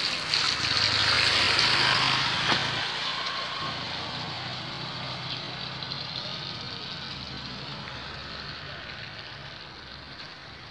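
Vehicle noise on a wet road: a low engine running under a broad hiss, which is loudest for the first few seconds and then slowly fades.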